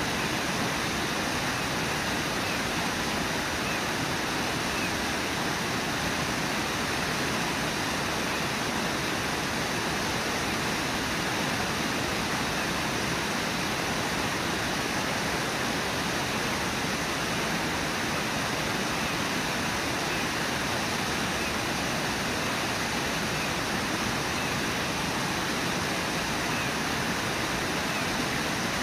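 Steady rush of white water at Brooks Falls on the Brooks River, an even, unbroken noise.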